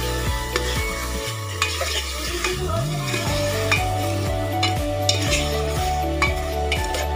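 Potato wedges sizzling as they fry in oil in an aluminium pot, stirred with a spatula. Irregular scrapes and taps of the spatula against the pot sound over the sizzle.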